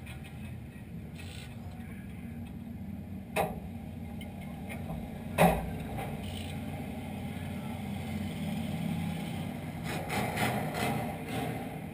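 Dirt-track race car engine idling steadily, with two sharp knocks on the car body about two seconds apart, the second the loudest.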